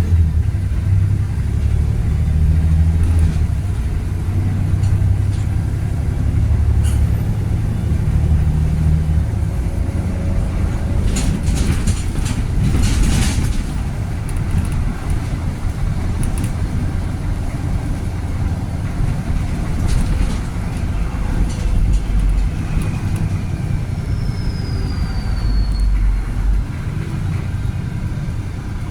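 Volvo B7RLE single-deck bus with a Voith automatic gearbox, its six-cylinder diesel engine and drivetrain rumbling steadily on the move. There is a spell of rattling clatter about halfway through and a faint falling whine near the end.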